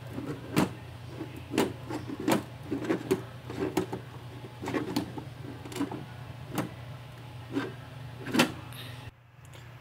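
Plastic wrestling action figures being handled and knocked against each other and a toy ring: irregular sharp clacks and knocks, about two a second, over a low steady hum, stopping shortly before the end.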